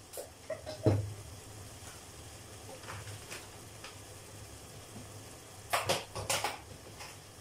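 Kitchen items being handled: a few short clicks and knocks, the sharpest about a second in and a quick cluster of them around six seconds, over a low steady hum.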